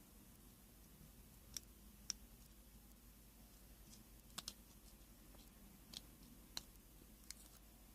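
Faint small clicks, about seven scattered over near silence, from a razor blade and fingers working at the small plastic parts of a phone being taken apart.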